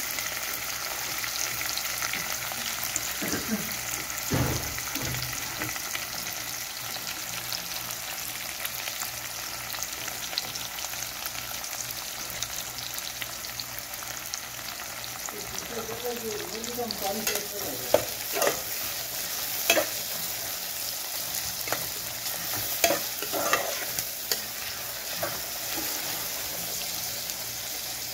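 Sliced onions and green chillies frying in hot oil in an aluminium pot, a steady sizzle, the onions just beginning to soften. A few sharp clicks in the second half.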